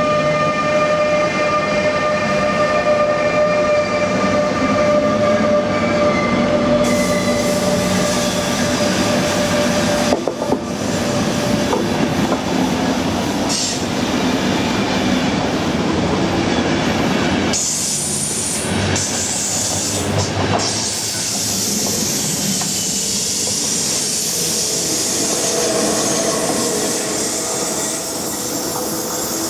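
ÖBB class 1016 Taurus electric locomotive moving off with an intercity train, its traction converters giving a steady whine that fades after about ten seconds. The coaches then roll past with wheel noise and rail clatter, and there is a brief high wheel squeal a little past halfway.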